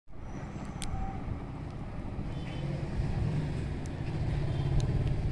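Steady low rumble of background traffic noise, with a few faint clicks.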